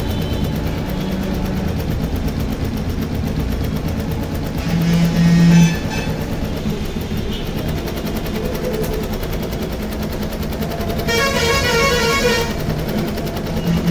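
Multi-needle embroidery machine running, its needle bar stitching steadily. A short low tone sounds about five seconds in, and a brief warbling horn-like tone sounds near the end.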